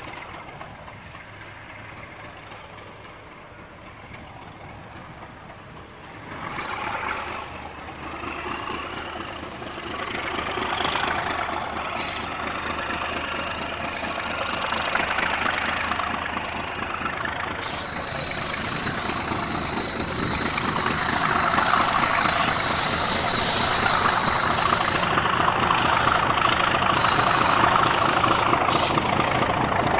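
British Rail Class 37 diesel locomotive with its English Electric V12 engine working as it hauls a train of coaches toward the listener, the engine growing steadily louder as it nears. A steady high whistling tone sounds for several seconds past the midpoint.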